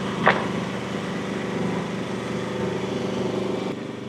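Sawmill engine running steadily, with a single sharp knock about a third of a second in.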